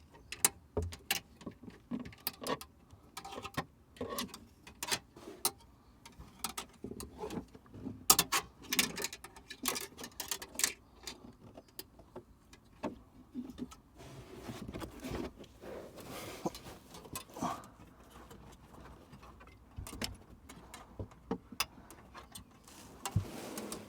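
Irregular clicks, taps and rustling of a wire coat hanger and cable being pushed and pulled through a car's wiring channel, with a denser stretch of scraping about two thirds of the way in.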